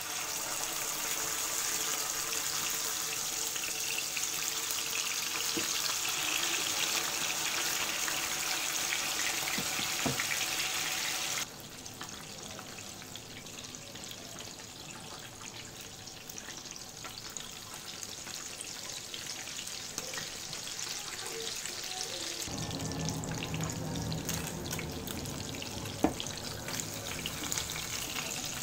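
Butterflied mackerel sizzling in hot oil in a nonstick frying pan. The sizzle drops away suddenly a little over a third of the way through, then comes back fuller near the end, with a single sharp click of the tongs or spatula on the pan.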